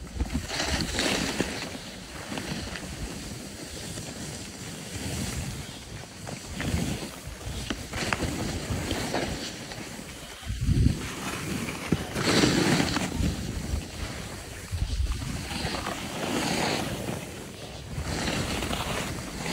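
Skis scraping and hissing over snow in repeated swells as the skiers turn, with wind rumbling on the microphone.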